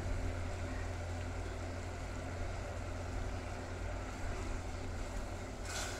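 Sugar syrup boiling hard in an aluminium pot on a gas stove, a steady low rumble with a bubbling hiss above it, while a silicone spatula stirs it. The syrup is still thin and is being boiled down to thicken. A brief louder rush of noise comes near the end.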